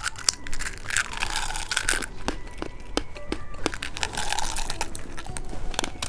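Plastic candy wrapper crinkling and being torn open, with many sharp clicks and crackles as the packaging is handled.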